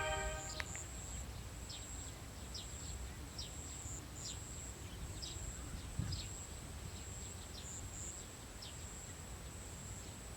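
Outdoor field ambience: a steady high-pitched insect drone with short, falling bird chirps every second or so, over a low rumble of wind on the microphone. Background music ends about half a second in.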